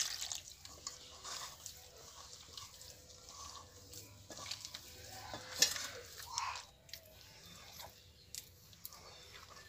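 Water poured from a saucepan into a steel bowl of rice flour at the start, then a hand squelching and slapping the wet rice-flour batter against the steel bowl as it is mixed, with scattered small wet clicks and a sharper slap about five and a half seconds in.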